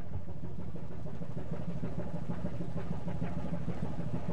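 A ship's engine running steadily with a low, even hum.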